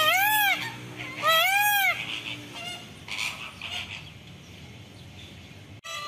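Indian peafowl (peacock) calling: two loud calls in about the first two seconds, each rising then falling in pitch, followed by a few fainter calls.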